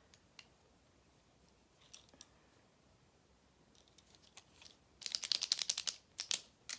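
Scattered light clicks and taps from handling pens and packaging, then a quick run of rapid clicks lasting about a second and a half near the end.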